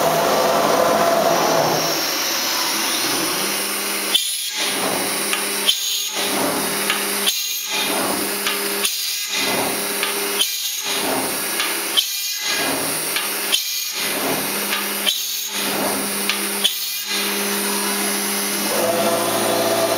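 SR-100 CNC router drilling a row of screw holes in metal drop-ceiling edge trim. The spindle runs with a steady hum, and a repeating cycle of a short sharp sound and a brief lull comes about every second and a half as the bit moves from hole to hole.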